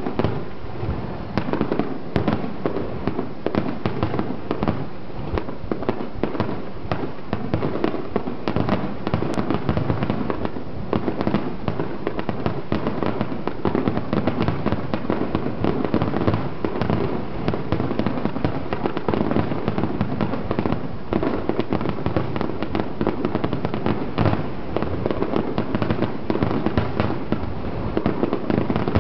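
Closing barrage of aerial firework shells bursting in rapid succession, booms and crackles overlapping without a break.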